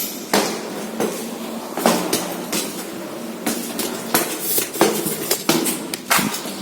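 Footsteps crunching and knocking over rubble and debris: about ten irregular sharp impacts, some ringing slightly.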